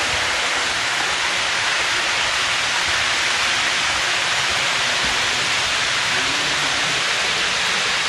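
HO-scale model covered hopper cars rolling along the track: a steady, even rushing hiss.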